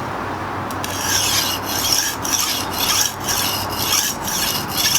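Steel knife blade (Miyabi Mizu SG2 santoku) scraped back and forth over a wet 120-grit Shapton Glass whetstone, in rhythmic gritty strokes about two a second that start about a second in. The coarse stone is cutting fast to raise a burr on the edge.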